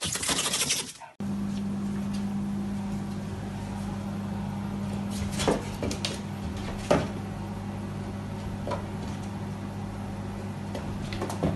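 A brief burst of loud noise that cuts off about a second in, then a steady low machine hum with a few sharp clicks or knocks over it.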